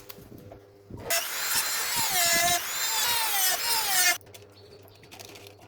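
A small electric power tool runs for about three seconds, starting and stopping abruptly. Its high whine wavers down and up in pitch while it runs.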